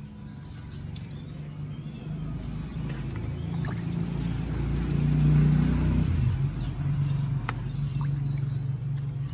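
A motor vehicle's engine hum that swells to a peak about five seconds in and then fades as the vehicle passes by. A light click comes near the end.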